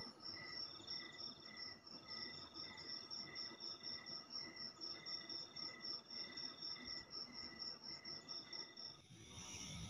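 Night insects calling: crickets chirping in even pulses, about two to three a second, over a faster high pulsing, with a buzzing trill that stops and starts. The chorus changes abruptly near the end.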